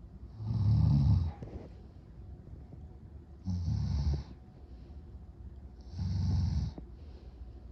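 A person snoring loudly during sleep: three heavy snores about two and a half seconds apart, with quieter breathing between them.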